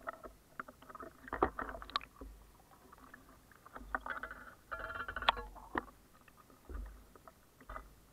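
River water splashing and lapping around a half-submerged camera, with irregular knocks and clicks and bursts of low rumble as the water slops against it.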